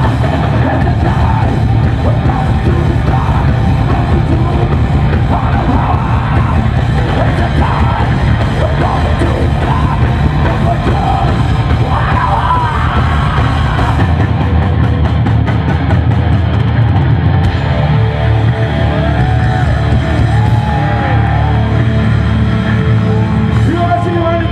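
A heavy metal band playing live and loud: distorted electric guitars, bass and drums, with yelled vocals.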